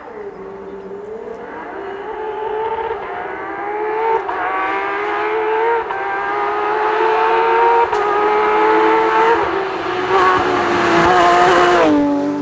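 Porsche 911 rally car's flat-six engine accelerating hard through the gears, its note climbing and dropping back with each of several upshifts as it grows louder. The pitch falls abruptly near the end.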